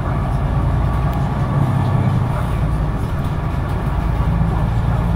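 Autosan Sancity 12 LF city bus heard from inside the passenger cabin while driving: a steady low engine drone with road noise. The engine note rises slightly about four seconds in.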